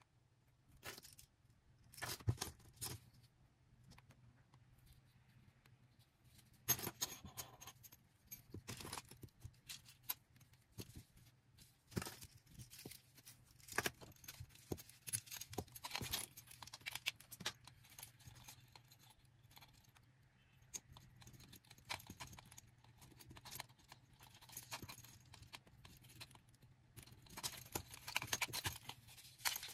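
Hands packing orders: irregular rustling, scraping and small clicks of packaging and small items being handled, over a faint steady low hum.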